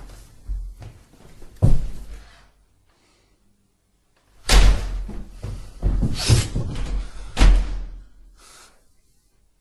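Heavy door slams and bangs: two in the first two seconds, then after a brief pause a run of louder bangs about a second apart, the loudest about four and a half seconds in.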